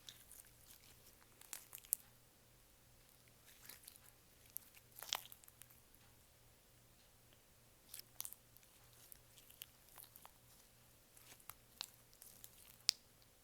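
Clear slime being worked by hand, giving faint, scattered sticky clicks and small pops, about a dozen spread irregularly, the sharpest about two seconds in and near the end.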